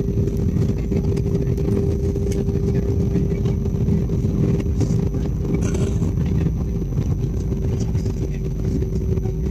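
Airliner cabin noise during the landing roll: a steady loud rumble of engines and wheels on the runway, with a constant hum running underneath, spoilers raised on the wing.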